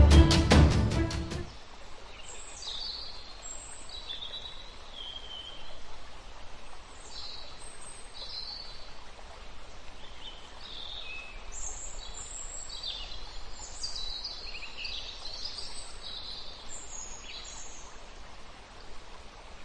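Birds chirping, with many short high calls and quick gliding notes scattered over a faint steady background. Loud music plays for the first second and a half and then cuts off.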